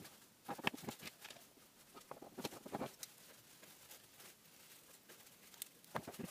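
Faint, irregular clicks and taps of small 3D-printed ABS and PETG plastic parts being handled and fitted together by hand.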